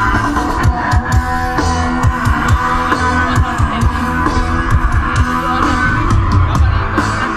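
Live rock band playing: electric guitar with bass and drums keeping a steady beat.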